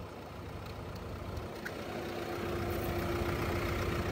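Diesel engine of a JCB backhoe loader approaching, growing steadily louder, with a steady whine coming in about halfway through.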